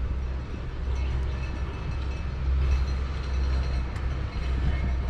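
A vehicle engine running nearby, heard as a steady low rumble.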